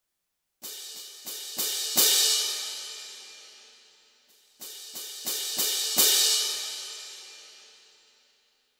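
Roland SPD::ONE Percussion pad playing its pair-cymbal (orchestral clash cymbals) sample: two phrases of five crashes each, building louder, the last of each the loudest and left to ring out for about two seconds.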